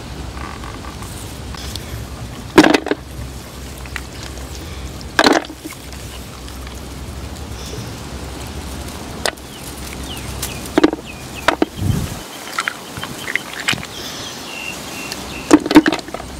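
Several sharp knocks at uneven intervals, a few seconds apart, over a steady low rumble that cuts off suddenly about twelve seconds in.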